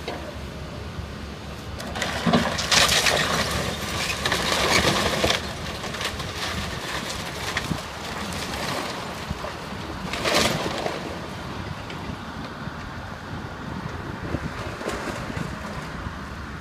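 John Deere excavator's diesel engine running steadily while its bucket and thumb grab and crush a pile of house-demolition debris. Broken lumber and metal crunch and clatter loudly for about three seconds near the start, then again briefly about ten seconds in.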